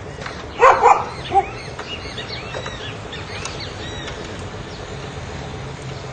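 A dog barks three times, sharply, about a second in, then birds chirp in a quick series of high calls over a steady low hum.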